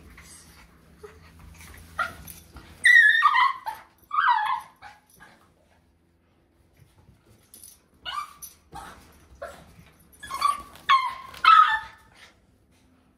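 Small fluffy dog whining and yipping excitedly in greeting, in two bouts: a short one about three seconds in and a longer run of calls from about eight seconds.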